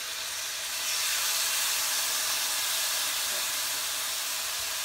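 Steaks searing in a pan of hot oil with garlic and onion: a steady sizzle that swells about a second in and holds.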